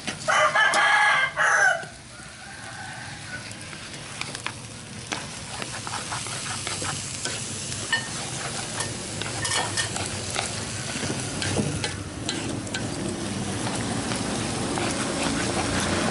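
Shredded pickled mustard greens and egg sizzling in a metal wok as they are stir-fried with wooden chopsticks, with scattered sharp clicks of the chopsticks against the pan; the frying grows a little louder in the second half. A rooster crows loudly once, near the start.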